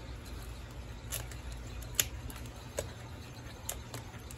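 Fingers pressing potting soil down around a freshly potted cutting in a plastic nursery pot, giving a few light, sharp ticks about a second apart over a low steady hum.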